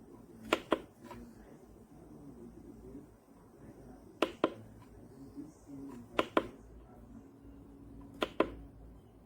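Four sharp double clicks, one pair about every two seconds, the two clicks in each pair a fraction of a second apart, over a faint low background.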